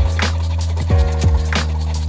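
Background music with a steady beat, a strong bass line and regular percussive hits.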